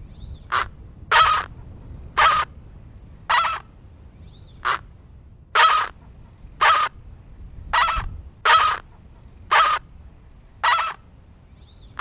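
A flock of flamingos calling: loud, harsh, goose-like honks, one roughly every second.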